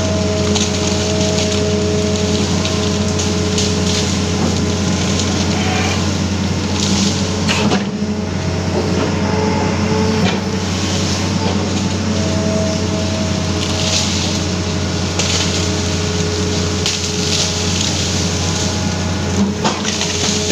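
Amphibious excavator's engine running steadily with a few held tones, while its bucket crushes brush and snaps branches; sharper cracks of breaking wood about eight and ten seconds in and near the end.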